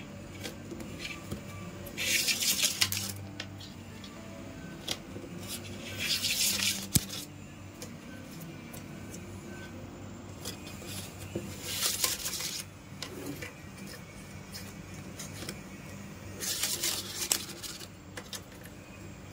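Soft background music with sustained low notes. About four times it is broken by a second-long rustling scrape of plastic PE rattan being handled and worked into the basket.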